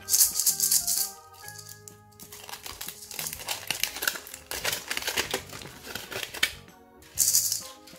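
Gold foil wrapper crinkling and crackling as a foil-wrapped surprise egg is peeled open by hand, for a few seconds in the middle, over background music. Short hissy bursts come near the start and near the end.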